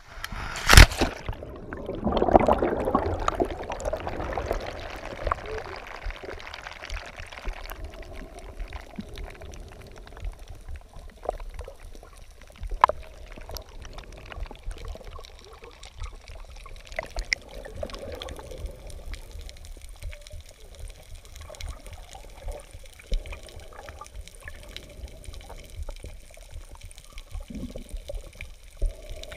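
Seawater heard through a waterproof camera housing as it plunges under the surface: a sharp splash about a second in, then a burst of rushing, bubbling water that settles into a quieter underwater wash with scattered small ticks.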